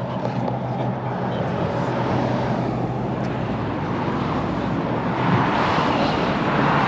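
Road traffic on a highway bridge: a steady engine hum and tyre noise, with a vehicle passing and the noise swelling about five seconds in.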